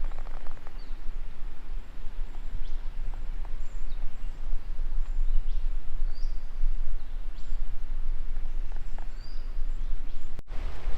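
Outdoor bush ambience: a steady rushing noise with a low rumble on the microphone, and short high bird chirps scattered through. The sound drops out sharply for a moment near the end.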